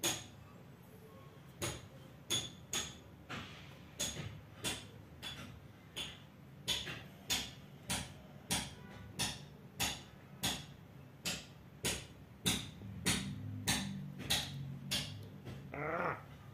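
Steady, evenly spaced ticking, about three ticks every two seconds, with a brief gliding sound near the end.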